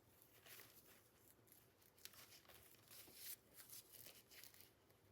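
Near silence, with faint, scattered rustles of paper and card being handled in a handmade journal.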